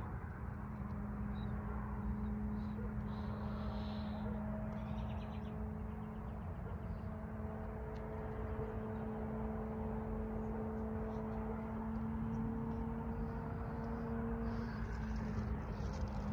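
Steady mechanical hum of a motor or engine, holding a few constant pitches over low outdoor rumble.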